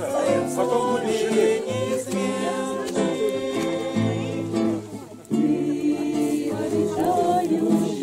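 A group of voices singing a song together with acoustic guitar accompaniment. The singing breaks off briefly about five seconds in, then resumes.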